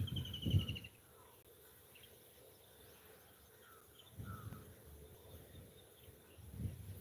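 Rural outdoor ambience: a bird gives a quick descending trill of rapid repeated notes near the start, with a few faint chirps after it. Low, muffled rumbling bursts come in the first second, again about four seconds in, and near the end.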